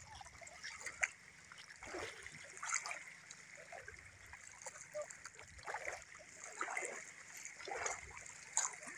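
People wading through shallow seawater, their legs sloshing and splashing with each stride, in irregular splashes about once a second.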